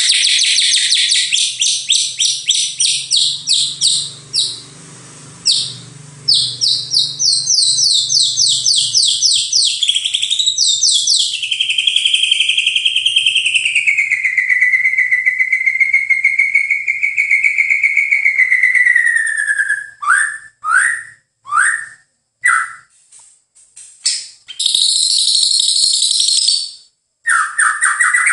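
White-rumped shama (murai batu) singing loudly. It opens with fast runs of repeated high notes, then holds one long wavering whistle that slides slowly downward, and ends with a string of short falling whistles and another rapid burst of notes.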